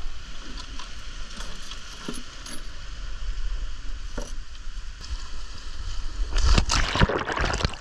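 Scattered small clicks and clinks of dive gear and footsteps on a rocky shore over a steady hiss, then loud splashing about six and a half seconds in as a diver goes into the sea.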